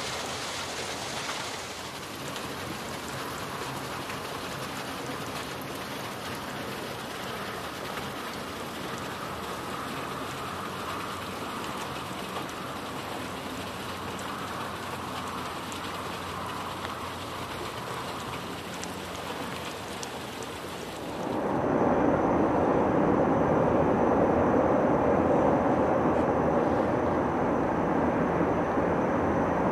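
Steady hiss of running water in a partly frozen mountain stream. About two thirds of the way through it cuts to a louder, lower steady noise: a freight train hauled by an Re 10/10 (an Re 4/4 II and an Re 6/6 coupled together) running in the distance.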